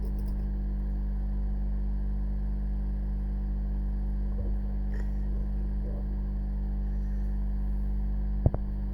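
Steady electrical mains hum, an even low drone with overtones, with a faint tick or two midway and a sharp click near the end.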